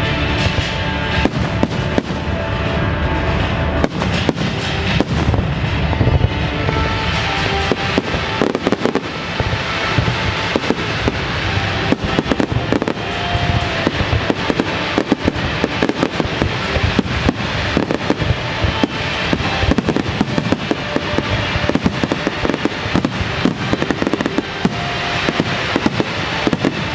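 Aerial fireworks bursting, many bangs in quick succession, over a musical soundtrack.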